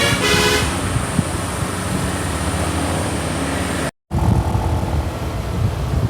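Tour bus's telolet basuri musical air horn ends a fast tune of short pitched notes about half a second in. Then comes the steady rumble of the bus engine and road traffic. After a brief dropout near four seconds, the rumble goes on lower and more uneven.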